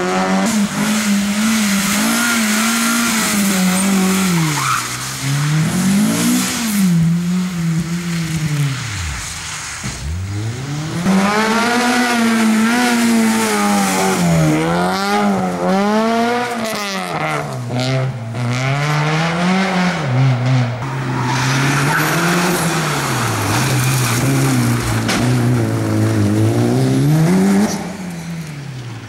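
Rally cars driven hard on a tarmac stage, one after another, among them a Honda Civic hatchback and a Mitsubishi Lancer Evolution: engines revving up and dropping back again and again through gear changes and corners, with some tyre squeal.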